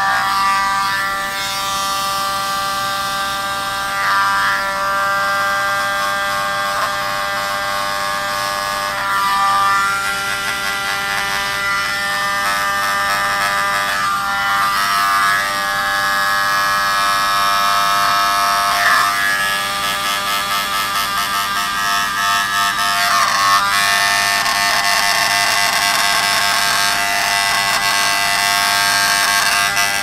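Miniature electric leaf blower running continuously, with a steady high-pitched motor whine that wavers briefly every few seconds as it blows wet acrylic paint across a canvas.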